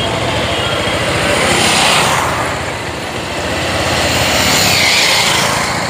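Several motorcycles riding close by. Their engines swell louder as they pass, about two seconds in and again around five seconds.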